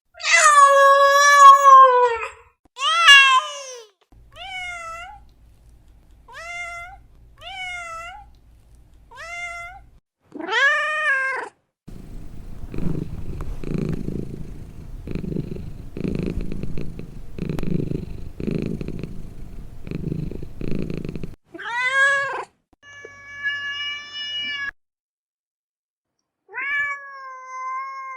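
Cats meowing: a loud drawn-out meow and another short one, then a run of small, high kitten mews. A louder meow is followed by about ten seconds of rhythmic purring that swells and fades with each breath, then a few more meows.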